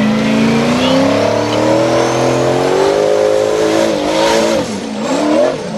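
Formula Offroad buggy's engine at high revs under full throttle, its pitch climbing steadily for about four seconds, then dropping and surging again twice near the end as the throttle is lifted and reapplied.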